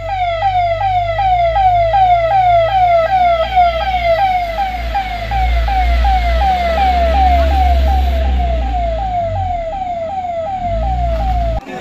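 Ambulance siren sounding a fast, repeating falling wail, about three sweeps a second, with a low rumble underneath.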